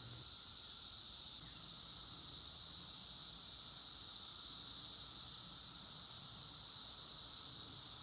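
Chorus of many 17-year periodical cicadas singing together: a steady, high-pitched drone that holds without rising or falling.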